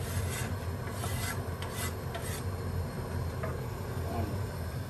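A knife blade scraping crushed peppercorns across a plastic cutting board into a pot, in about five short rasping strokes over the first two and a half seconds, over a steady low hum.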